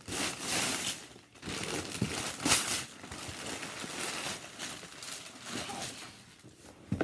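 Paper crinkling and a cardboard box being handled: several rustling bursts, the strongest about two and a half seconds in, then a softer steady rustle.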